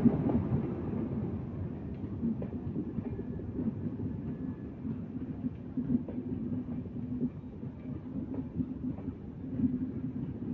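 Shunting railway locomotive running: a steady low rumble with a drone and frequent light clicks and knocks.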